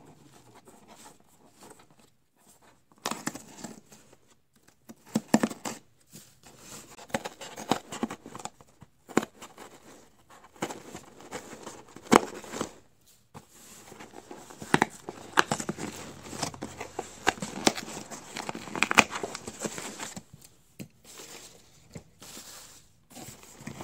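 Scissors slitting the packing tape on a cardboard shipping box, then the cardboard flaps pulled open: irregular scraping, tearing and crinkling with sharp clicks. It starts about three seconds in.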